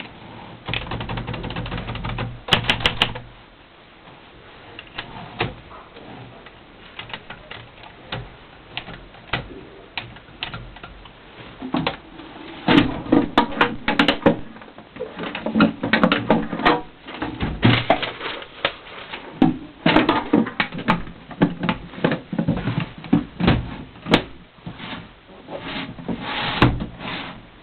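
Hermes Media 3 manual portable typewriter being typed on: irregular sharp key strikes, sparse at first and coming in quick runs from about halfway. A low steady hum sounds under the first few seconds and stops.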